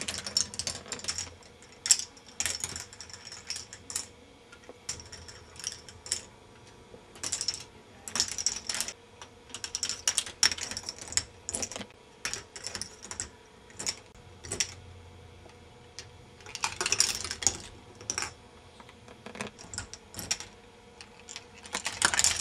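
K'nex ball machine running: plastic balls clattering and clicking through the plastic track and elements in irregular bursts, with a busy stretch of clatter about three-quarters of the way through, over a faint steady hum.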